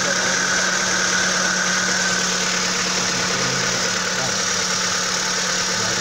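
Kia petrol engine idling steadily with a ticking noise, the tick-tock that comes on in the morning for about a minute after a cold start.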